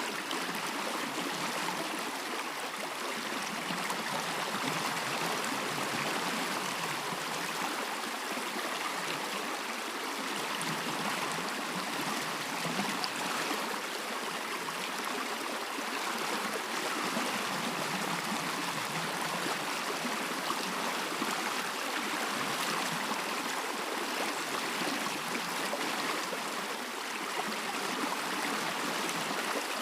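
Stream water running steadily, a continuous even rush and trickle.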